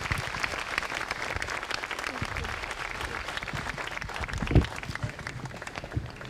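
Audience applauding, a dense patter of clapping that thins out near the end. A single loud thump comes about four and a half seconds in.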